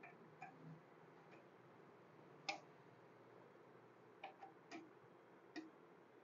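Near silence with a few faint, sharp clicks scattered through it, the loudest about two and a half seconds in.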